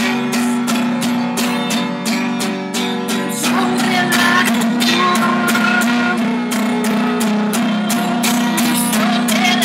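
Acoustic guitar strummed in a steady rhythm, an instrumental passage of an improvised indie-folk song.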